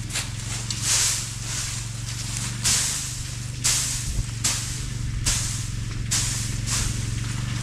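Dry hay rustling and swishing as a hay fork lifts and tosses it onto a haycock, in repeated swishes about once a second, over a steady low engine hum.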